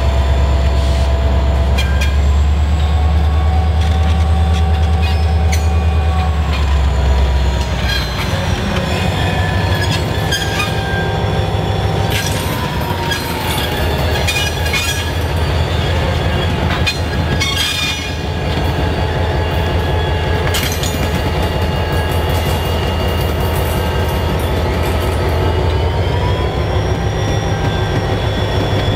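A string of diesel-electric locomotives (a CB&Q SD24, a C&NW GP7 and a Wisconsin Central SD45) rolling slowly past at close range, their engines running with a heavy low rumble that eases about seven or eight seconds in. Thin squeals from the wheel flanges rise and fall over the top, and the wheels click sharply over rail joints, most often in the middle of the stretch.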